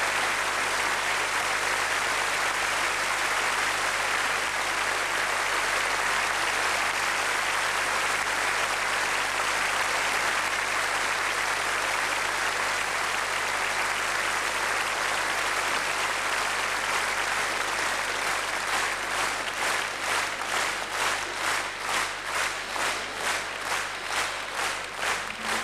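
Audience applauding. About 18 seconds in, the applause turns into rhythmic clapping in time, a little over two claps a second.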